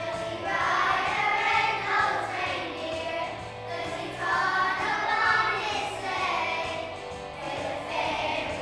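A group of young children singing together over backing music.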